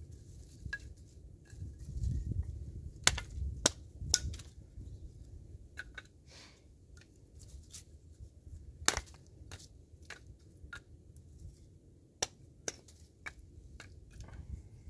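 Sharp knocks and cracks, spaced irregularly, as a small block is split into pieces with a blade, the loudest strikes a few seconds in and again near the middle.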